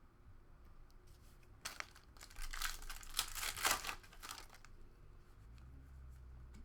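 Plastic wrapper of a trading card pack being torn open and crinkled, a dense crackling that lasts about three seconds.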